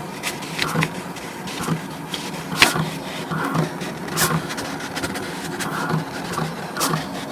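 Vinyl cutting plotter running a cut, its motors whirring steadily as the cutter moves, with irregular sharp clicks throughout.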